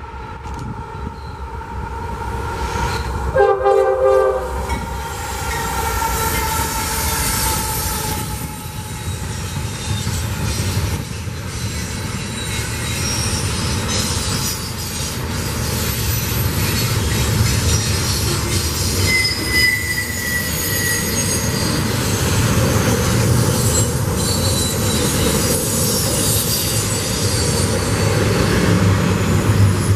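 Norfolk Southern double-stack container train passing close by: the diesel locomotives go by with a short horn blast about four seconds in, then the container cars rumble and clatter over the rails. High thin wheel squeal from the cars on the curve runs above the rumble.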